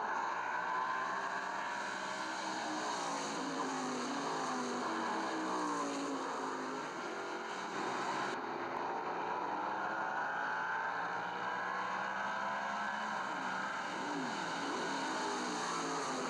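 Race car engines revving up and down, several overlapping, their pitch rising and falling as they accelerate and lift. The sound changes abruptly about eight seconds in, where one recording is spliced to the next.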